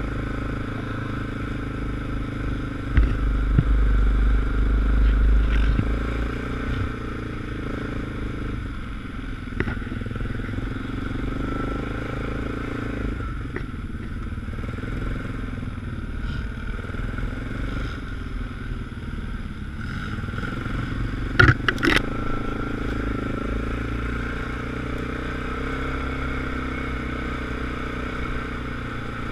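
ATV engine running steadily while the quad rides along a trail, heard from on board. A louder low rumble comes a few seconds in, and a few sharp knocks come about two-thirds of the way through.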